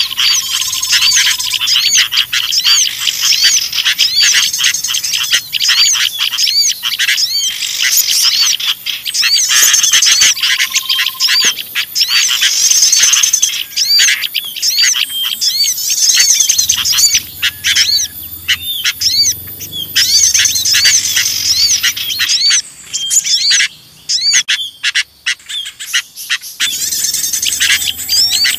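Bird-lure recording of sooty-headed bulbuls (kutilang) in noisy, agitated chatter, mixed with the calls of small songbirds: a dense stream of rapid, high chirps. It thins out briefly about three-quarters of the way through.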